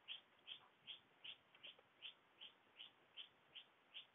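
Faint, short high-pitched chirps repeating evenly, about three times a second.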